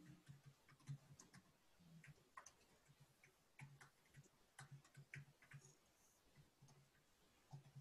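Faint, irregular clicking of computer keyboard keys as a sentence is typed, each keystroke a short click with a soft low thud.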